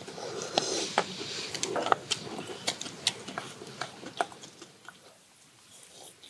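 People eating kimchi stew, chewing, with spoons and chopsticks clicking against stainless steel bowls in many short, sharp ticks. The sound grows quieter about two thirds of the way in.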